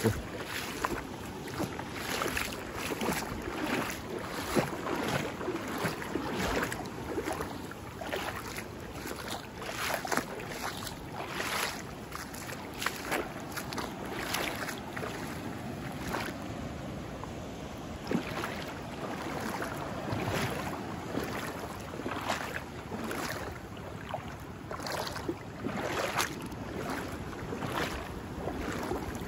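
Shallow seawater splashing and sloshing among rocks, in many short, irregular splashes over a steady wash of water.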